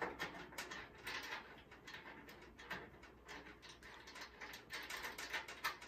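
Flexible metal conduit being worked into the fitting on an electric heater's wiring box: a run of small, irregular metallic clicks and scrapes.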